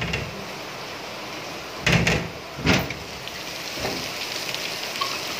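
A metal double door being unbolted and swung open: a few metal clanks and scrapes, the loudest about two seconds in. Steady heavy rain hisses in the background.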